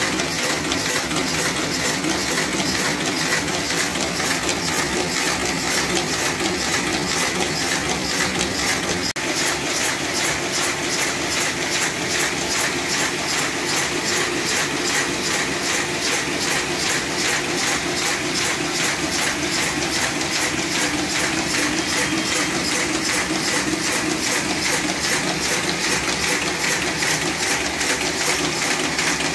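Buckle-plate paper folding machine running at speed, feeding and folding sheets with a fast, even mechanical clatter.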